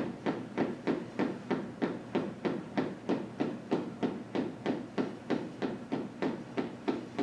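Sneaker toes tapping on a hardwood floor in a steady rhythm, about three taps a second, heels kept down.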